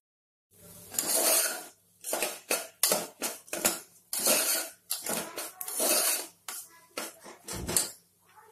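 Metal spatula scraping and stirring broken wheat around the bottom of a pressure cooker, a quick series of rasping strokes about two a second, starting about half a second in. The grain is being dry-roasted in oil and ghee with whole spices and nuts.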